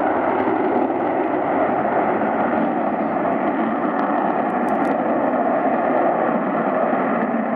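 Steady jet noise from the Blue Angels' four F/A-18 Hornets flying overhead in diamond formation.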